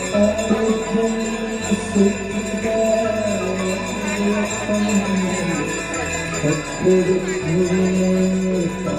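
Hindu devotional aarti music: a voice singing a held, gliding melody over many steady ringing tones, like bells and small cymbals jingling throughout.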